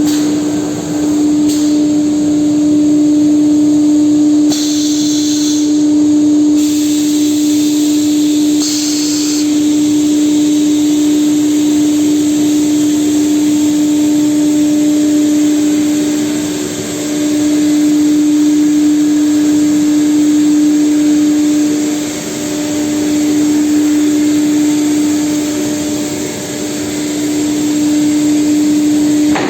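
Holztek Pro-R4A four-head CNC nesting router running: a steady tone over a constant hiss, dipping briefly in level a few times.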